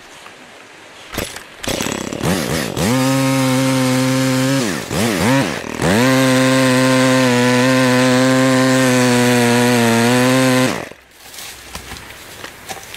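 Telescopic pole saw running and cutting a branch overhead: the motor winds up, its pitch sags and recovers twice as the chain bites, then it runs steadily at full speed for about five seconds and stops abruptly.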